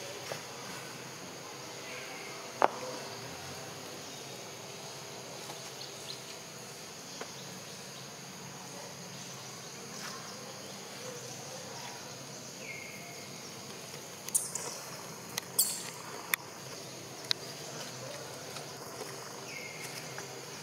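Steady chorus of forest insects, with a few sharp clicks: a single loud one about two and a half seconds in and a cluster about three quarters of the way through.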